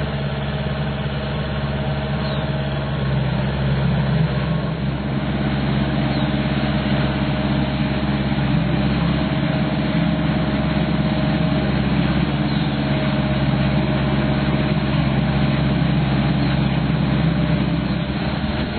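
Engine of an AlphaBoats FX10 aquatic weed harvester running steadily at a constant speed.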